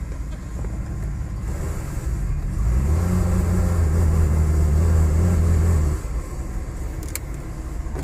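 Cadillac DeVille 4.9-litre V8 running, heard from inside the car. About three seconds in the engine note grows louder and heavier for about three seconds without climbing in pitch, then drops back abruptly. The engine has no power and won't rev.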